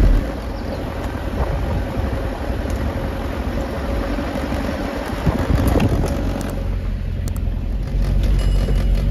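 Nissan Terrano 4x4 engine running as it climbs a steep, rutted dirt track, heard from inside the cab, with a few knocks from the vehicle jolting over the ruts. The low rumble grows stronger near the end.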